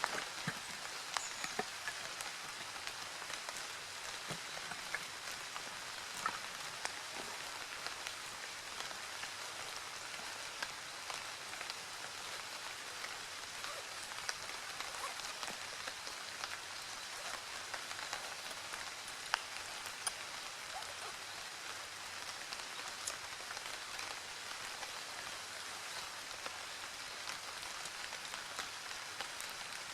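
Steady rain falling, an even hiss dotted with scattered light drop ticks.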